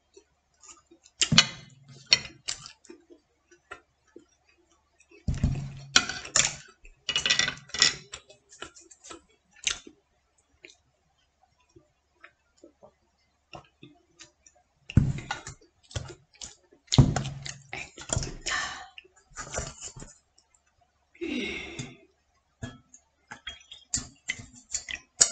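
Eating sounds: chewing and mouth noises with chopsticks clicking against a small bowl, in short bursts separated by pauses.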